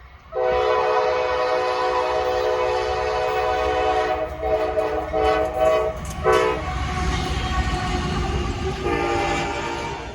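Norfolk Southern locomotive's Nathan K5LA five-chime air horn played in a horn show: one long blast starting about half a second in, then a run of short chopped blasts, a brief pause, and another blast near the end. The low rumble of the train runs underneath.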